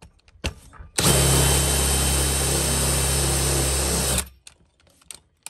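Cordless brushless drill running at a steady speed for about three seconds, boring into the metal ring mechanism of a leather planner to free it. It starts and stops abruptly, and a brief click comes just before it starts.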